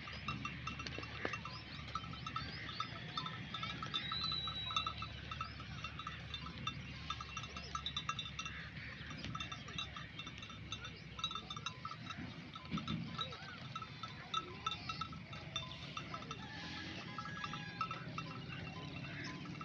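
Bells on a grazing flock of fat-tailed dumba sheep clinking and jingling irregularly throughout, with an occasional sheep bleat.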